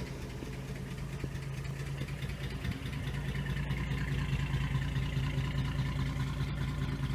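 1950 Chevrolet Styleline Deluxe's straight-six engine idling steadily just after a cold start, getting a little louder over the first few seconds and then holding even.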